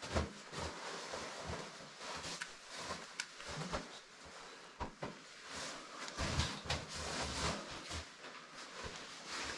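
Close handling noise: irregular rustling with scattered clicks, knocks and low thumps, as of gear, bags and a phone being handled.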